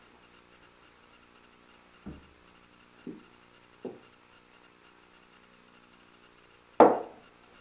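Small wooden cedar box knocking against a wooden workbench as it is handled: three soft knocks, then one sharp, much louder knock near the end.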